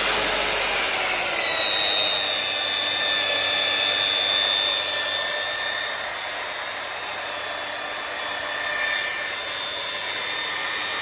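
LAILIBI 680 electric rotary car polisher running at full speed with its wool pad pressed against a steel plate, under load and drawing over 1400 W. It gives a steady high motor whine that drops a little in pitch in the first two seconds and then holds.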